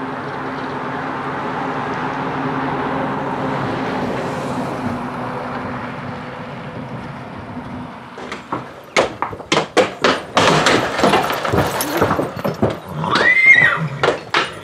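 An engine running steadily, swelling and then fading away over the first eight seconds. Then a quick run of sharp knocks, and near the end a horse whinnies loudly.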